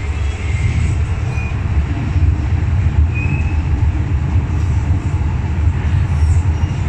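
MTR M-Train electric multiple unit running on the Tsuen Wan Line: a steady, heavy low rumble of the train's wheels and running gear on the track, with a couple of brief faint high wheel squeaks.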